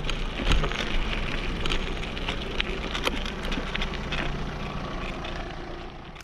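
Mountain bike tyres crunching over a gravel track, with scattered clicks and knocks from the bike and a steady low rumble; the sound fades out near the end.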